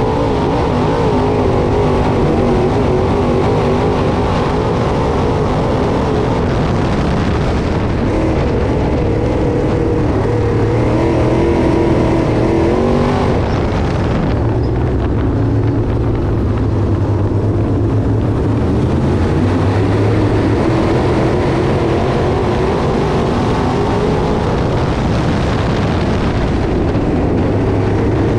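Dirt late model race cars' crate V8 engines running at racing speed, their pitch wavering up and down.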